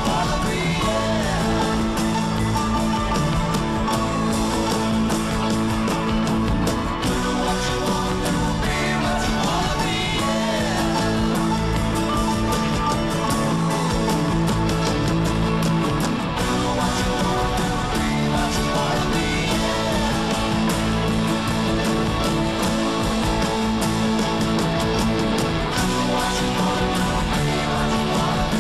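Rock music with guitars.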